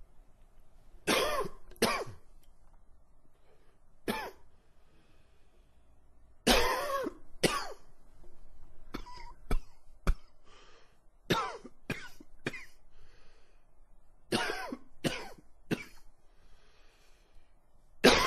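A man coughing in repeated short fits of one to four sharp coughs, with faint breaths drawn in between. It is a wheezy cough that he puts down to spring pollen and allergies.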